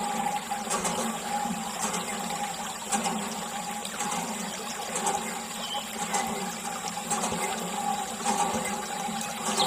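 A thin jet of water splashing and trickling over muddy toy tractors and puddled water, with a steady faint hum underneath.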